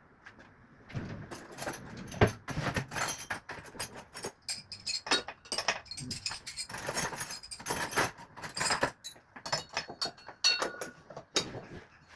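Metal hand tools clinking and rattling against each other as they are handled, a quick irregular run of sharp jingly knocks.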